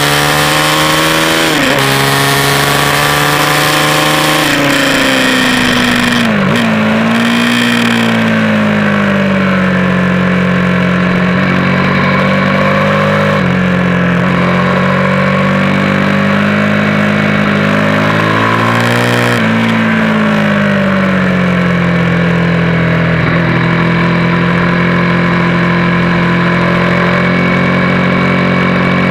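Race motorcycle engine heard onboard at full track speed: the revs climb and drop sharply at an upshift about a second and a half in, climb again, then fall away as the bike slows for a corner around five to seven seconds in. It holds a steady note through the corner, climbs slowly again, drops sharply about twenty seconds in and holds a steady note while leaned over. Heavy wind rush comes through with the engine in the opening seconds.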